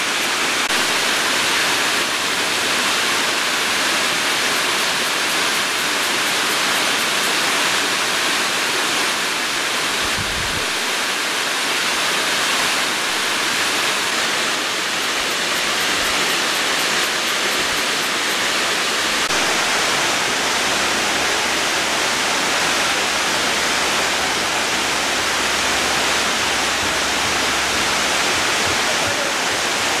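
Steady rush of falling water, an even hiss with no breaks.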